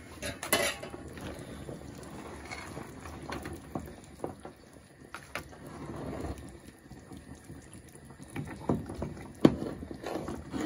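Pot of bong paya curry (trotters and beef shank in masala gravy) bubbling on a high flame, with a few clinks of a metal spoon against the pot, the loudest near the end.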